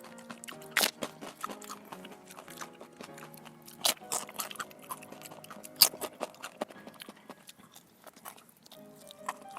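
Close-up eating sounds: a person biting and chewing crunchy food, with three loud crunches about a second, four seconds and six seconds in and smaller crackles between. Soft background music plays under it.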